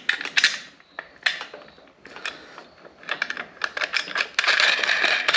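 Small metallic clicks and clinks of a nut and washer being threaded by hand onto the mounting stud of an amber hazard light on its metal bracket, with a busier scraping rattle near the end.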